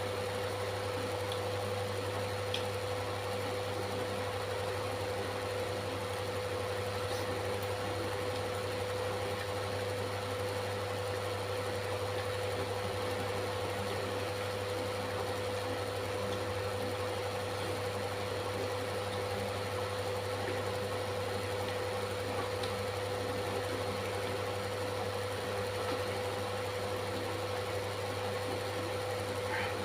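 Steady mechanical or electrical hum: a low drone with a steady higher tone over even hiss, unchanging throughout, with a few faint ticks.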